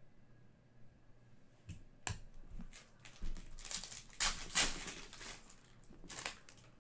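Foil trading-card pack being torn open and crinkled by hand, with the cards slid out of the wrapper. After about two quiet seconds comes a run of sharp crinkles and rustles, loudest in the middle.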